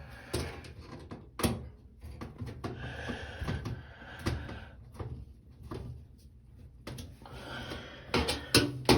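Screws being tightened by hand with a screwdriver on an LG direct-drive washer after a sensor replacement: scattered clicks and knocks with soft scraping between them, and a quick cluster of sharper knocks near the end.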